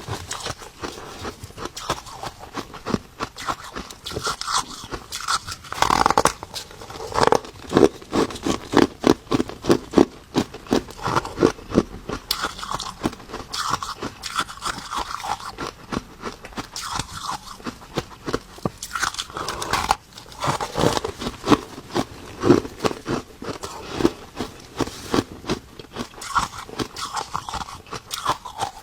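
Ice being bitten and chewed close to the microphone: a continuous run of crisp crunches and crackles, with bursts of rapid chewing strokes several times a second.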